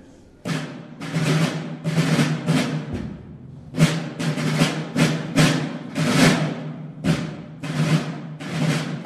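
Military field drums beating a march cadence: a steady run of short rattling rolls and strokes, about two a second, with a brief pause about three seconds in.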